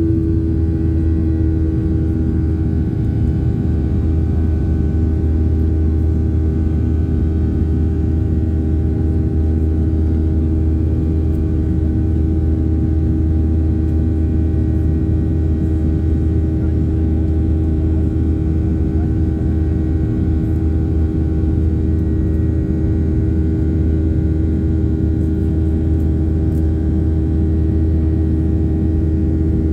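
Boeing 737 jet engines heard from inside the cabin during the climb after takeoff: a loud, steady drone with a deep rumble and a steady hum-like tone over it.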